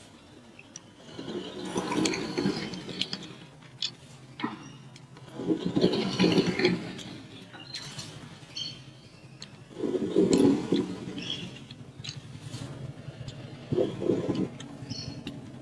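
A hand and sleeve brush and rub across a sheet of paper while a pen draws lines on it. There are four swells of swishing scrape, about four seconds apart, with small ticks of the pen tip between them.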